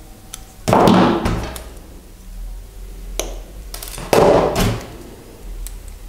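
Hand-tool handling while wire-wrapping copper with pliers: two loud knocks with rustling, about a second in and again about four seconds in, and a few small clicks of the pliers on the wire.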